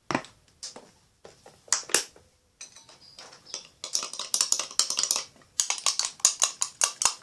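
Metal spoon stirring slime mixture in a bowl: a few scattered knocks at first, then from about four seconds in a fast run of clicks and taps, several a second, as the spoon strikes and scrapes the bowl.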